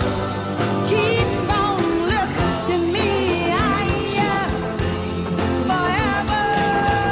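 Song with a sung vocal over a band with a steady beat.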